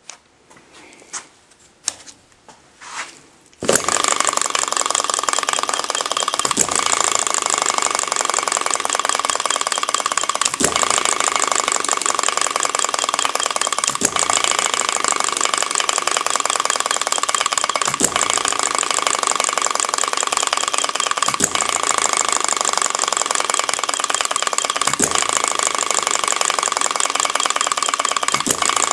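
Upshur model hit-and-miss engine starting with a few separate knocks, then running with a steady fast clatter and a louder knock about every three and a half seconds. Its governor has one spring removed, half the usual spring force.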